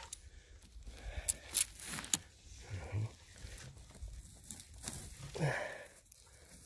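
Hand rustling and scraping through dry conifer needles, twigs and forest duff to uncover a buried pine mushroom, with crackling and several sharp twig snaps between about one and two seconds in.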